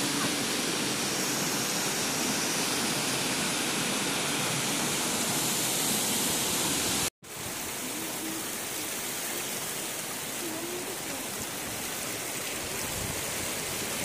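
Steady rushing of a shallow mountain stream. It cuts off abruptly about seven seconds in, then a similar steady rushing noise comes back a little quieter.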